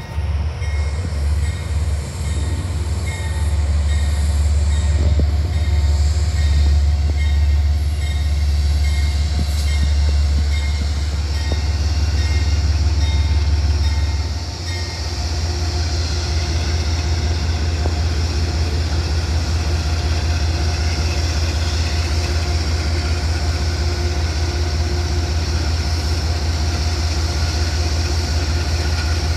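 Amtrak GE Genesis diesel locomotive's engine rumbling low and heavy as the passenger train comes in with faint high squeals from the wheels. About halfway through it settles into a steady idling drone.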